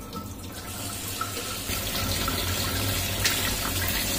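Kitchen tap running onto moringa (drumstick) leaves in a stainless steel mesh colander, with a hand tossing the leaves to wash them. A steady splashing that grows a little louder over the first two seconds.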